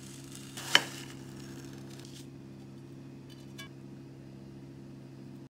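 Large kitchen knife slicing through a block of frozen strawberry ice cream with a scratchy scraping sound, with one sharp click just under a second in as the blade meets the ceramic plate and a few faint ticks later on.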